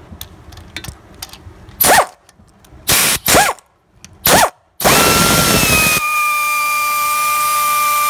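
A power ratchet backs out a front hub bearing retaining bolt. It fires in several short bursts, each rising and falling in pitch, then runs steadily from about five seconds in as the bolt spins out.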